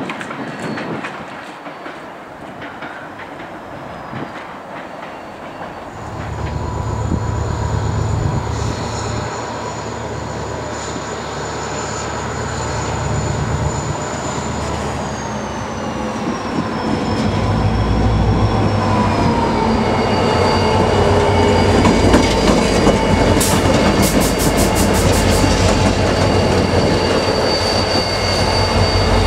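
Irish Rail 071 Class diesel locomotive, an EMD two-stroke V12, approaching and passing close by with a low engine throb that grows louder. A high whine drops in pitch about halfway through, and a quick run of clicks comes near the end.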